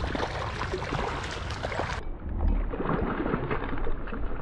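Water sloshing and splashing, with scattered sharp clicks and a low rumble of wind on the microphone. The sound turns duller about two seconds in.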